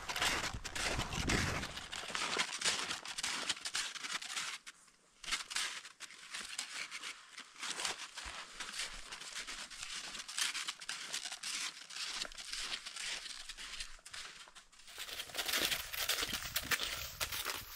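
Snowshoes crunching into packed snow in a steady run of footsteps, their crampons digging in on a downhill trail, with a brief pause about five seconds in.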